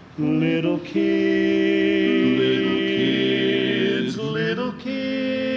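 Male barbershop quartet singing a cappella in four-part harmony, holding long chords, with short breaks about a second in and near the end.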